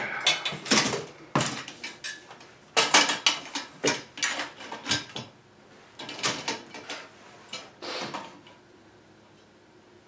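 Irregular clanks, knocks and scrapes of a chainsaw and its bar being handled and set into a metal Alaskan chainsaw mill frame on a wooden workbench: metal knocking on metal and on wood.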